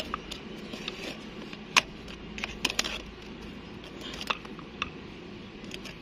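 Knife blade scraping and clicking against the rim of a steel tumbler as the baked dough seal over its mouth is pried off. The clicks are irregular and light, the loudest just under two seconds in, with a quick cluster of them shortly after.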